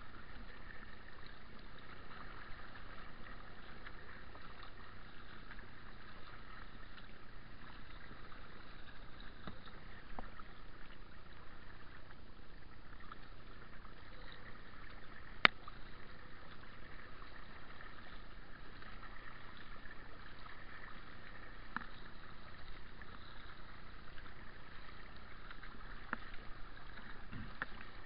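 Water washing and trickling off kayak paddle strokes, with a few light clicks and one sharp knock about halfway through.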